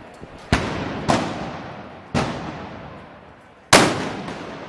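Four loud gunpowder bangs at uneven intervals, each with a long echo that fades over about a second; the last is the loudest.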